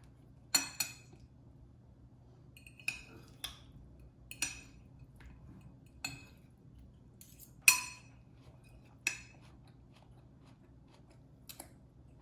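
Metal utensils clinking against dishes: about nine short, ringing clinks at irregular intervals, the loudest about three-quarters of the way through. A faint steady low hum runs underneath.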